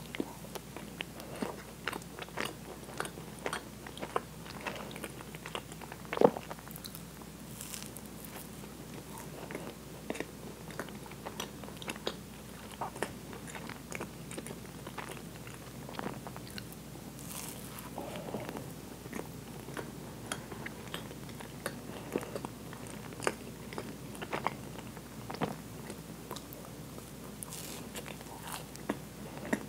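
Close-miked eating sounds of Twinkie snack cakes: a bite into the soft sponge cake, then wet chewing and many small mouth clicks and smacks, one sharper click about six seconds in.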